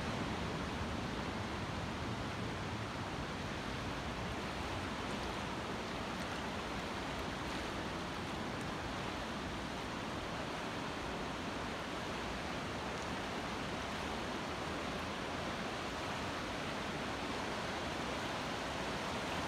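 The West River in flood, running high and fast: muddy water rushing over submerged boulders in a steady, unbroken rush.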